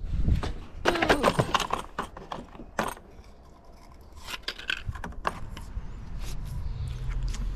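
Metallic clinks, clicks and knocks of hand work on a bicycle. They come in a quick cluster about a second in, with a short falling squeak, then a single knock near three seconds and a few more clinks around four to five seconds.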